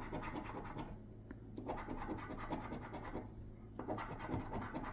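A coin scraping the scratch-off coating from a lottery ticket in rapid strokes, in three spells separated by brief pauses.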